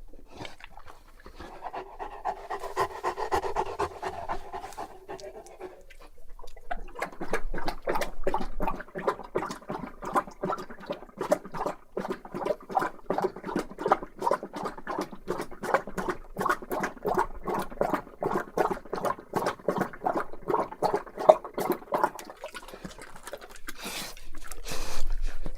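Bullmastiff panting deeply, close up: a few seconds of heavier breathing, then fast, steady, rhythmic panting for most of the stretch.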